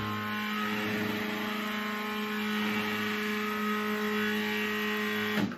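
X-Carve CNC's Z-axis stepper motor jogging the router carriage down one inch: a steady pitched hum with many overtones that stops abruptly near the end. The tone is harmonics set by the travel speed, not a fault.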